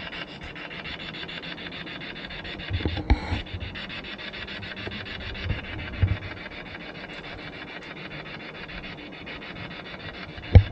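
Spirit box scanning through radio frequencies: a steady hiss of static, chopped rapidly and evenly as it sweeps. A few soft knocks come about three and six seconds in, and a sharp click near the end.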